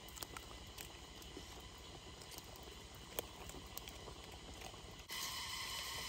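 Faint crackling and ticking of a cooking fire under a pot of simmering chicken curry. About five seconds in, the sound cuts abruptly to a louder, steady high-pitched hum.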